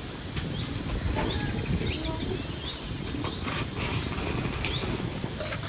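Field ambience: wind rumbling on the microphone, a steady high-pitched insect drone, and scattered short bird chirps.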